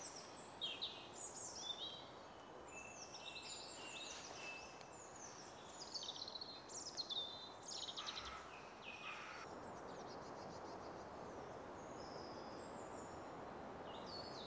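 Woodland songbirds singing: quick, high chirps and falling trills for about the first nine seconds, then only faint background hiss.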